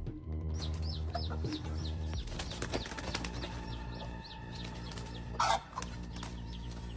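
Chicks peeping in quick, high, falling notes while a hen flaps and clucks in a fight with a cobra, with one loud squawk about five and a half seconds in.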